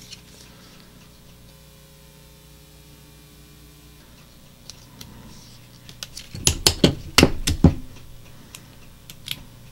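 Rivas film tape splicer worked by hand: a low steady hum, then about six and a half seconds in a quick run of sharp clicks and snaps from the splicer's mechanism as film and splicing tape are set and pressed on it, and one more click near the end.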